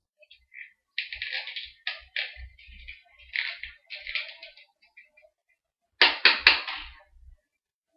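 Handling noise from crimping hair with a flat iron: hair rustling and the iron being worked, with soft knocks, then three sharp clicks in quick succession about six seconds in.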